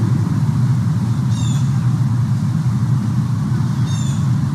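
A steady low rumble with a short, high chirping call heard twice, about two and a half seconds apart.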